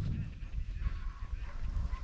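Hunting dogs baying and yelping in the distance, a run of broken high calls, over a low rumble on the microphone.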